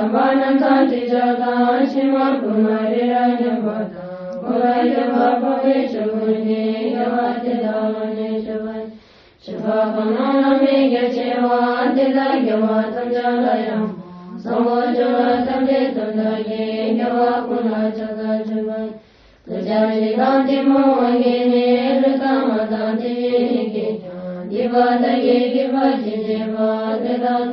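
Buddhist mantra chanted to a slow, even melody as background music, in phrases of about five seconds with brief pauses between them.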